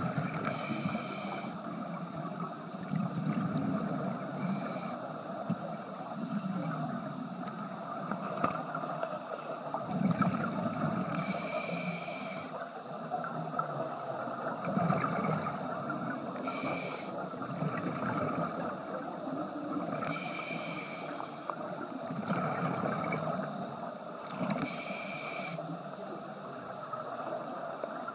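Scuba regulator breathing underwater: a short hissing inhale through the demand valve about every four to five seconds, between them the low rumbling gurgle of exhaled bubbles.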